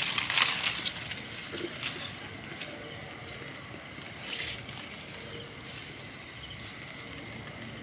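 Night insects chirring in a steady, high-pitched drone of two even tones. A brief rustle of grass underfoot comes in the first second, the loudest part, with a few fainter rustles later.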